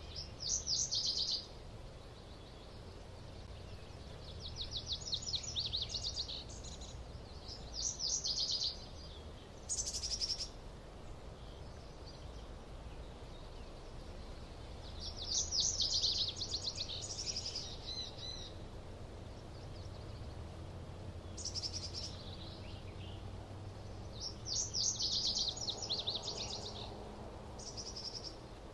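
A small songbird singing a series of short, high trills, each about a second long and repeated every few seconds, over a steady low background rumble.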